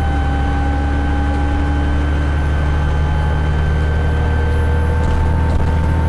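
ADL Enviro400 double-decker bus engine running with a steady low drone, its turbocharger whistling above it in a thin whine that rises slowly in pitch.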